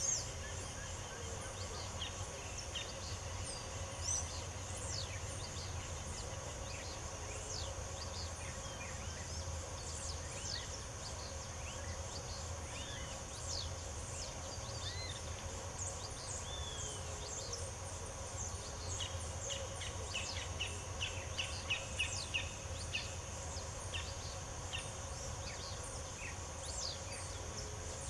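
Songbirds chirping and calling in short, scattered notes, with a quick run of repeated chirps about two-thirds of the way through. Behind them runs a steady high insect drone and a low rumble.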